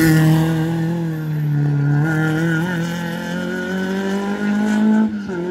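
Renault Clio rally car's engine pulling hard through a hairpin. The note holds fairly steady, climbs in pitch about four seconds in, then cuts off suddenly.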